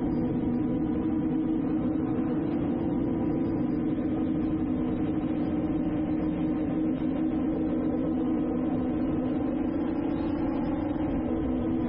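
Drone's motors and propellers humming steadily at a constant pitch.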